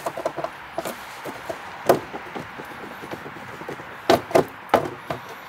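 Irregular knocks and clicks of a Land Rover Discovery 3's rear bumper cover being rattled and worked loose from its barbed retaining clips, with one loud knock a little under two seconds in and a cluster of louder knocks about four seconds in.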